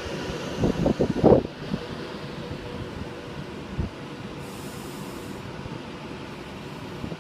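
Class 390 Pendolino electric train standing at the platform, its equipment giving off a steady hum with a faint held tone. A few low knocks and rumbles come in the first second or so.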